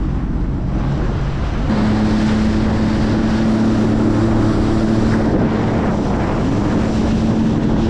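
Jet ski engine picking up speed about two seconds in, then holding a steady drone. Wind buffets the microphone and water rushes and splashes past the hull.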